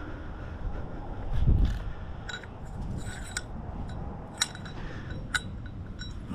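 Metal hand tools and loose motorcycle parts clinking and scraping as they are handled and set down on asphalt, with about half a dozen sharp clinks spread through the second half. There is a dull low thump about one and a half seconds in.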